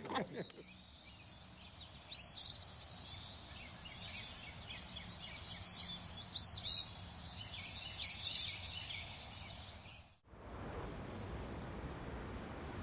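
Wild birds singing: a short, loud call repeated four times over a background of fainter high chirps. About ten seconds in it cuts abruptly to steady background noise without birdsong.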